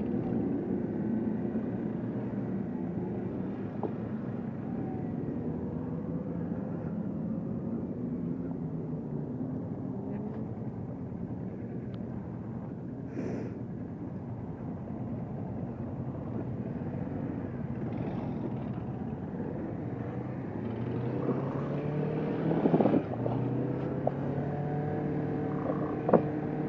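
Kawasaki Vulcan S 650's parallel-twin engine running while riding, its note rising and falling with the throttle and gear changes, with road noise. The engine note climbs a few times near the end.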